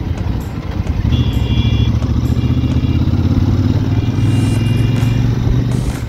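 Royal Enfield Super Meteor 650's parallel-twin engine running at low speed as the bike rolls slowly in traffic, heard from the rider's seat; it firms up about a second in and eases off near the end. A faint high-pitched tone comes and goes three times in the middle.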